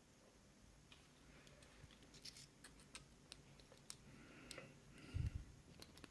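Faint small metal clicks and scraping of a padlock being handled and taken apart, with a dull low thump about five seconds in.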